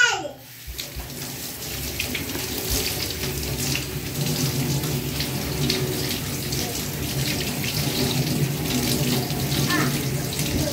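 Kitchen tap running steadily onto lettuce leaves as they are rinsed by hand in a stainless steel sink, water splashing off the leaves into the basin.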